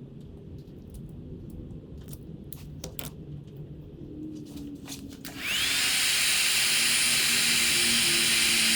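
A few faint clicks of handling, then about five and a half seconds in a heat gun switches on. Its fan spins up to a steady high whine over a loud rush of hot air as it shrinks heat-shrink tubing over crimped wire splices.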